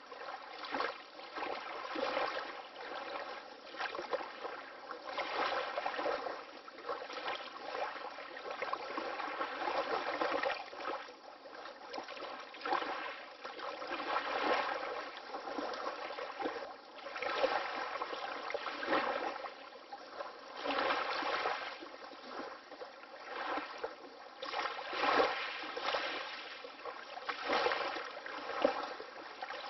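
Water lapping in small, gentle waves, with irregular soft splashes swelling and falling every second or two.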